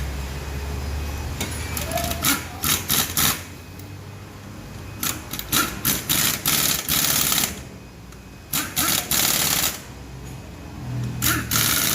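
Pneumatic shop air tool fired in bursts during brake caliper work: clusters of quick short blips, then longer bursts of about a second each, three times.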